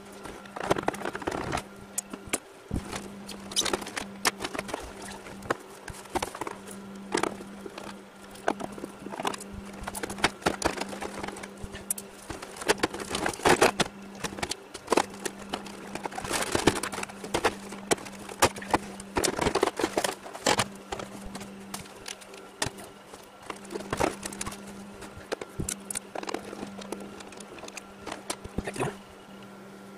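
Plastic casing of a portable air conditioner being taken apart by hand: irregular clicks, knocks and scrapes as panels are pried loose and handled, with louder clusters of rattling near the middle. A steady low hum runs underneath.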